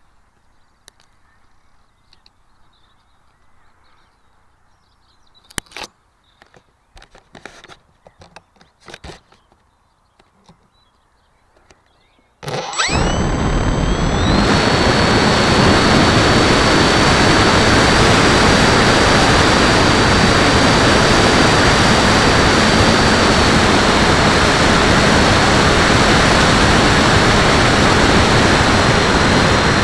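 Scattered knocks and rustles of handling for about twelve seconds, then the HobbyKing Walrus's electric motor spins up with a rising whine and settles into a steady high whine over a loud rush of propeller wash and wind on the wing-mounted camera as the RC wing is launched and flies.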